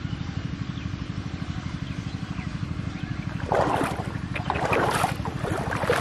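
A small engine runs steadily with a low, even throb. From about three and a half seconds in, three louder bursts of splashy, hissing noise rise over it.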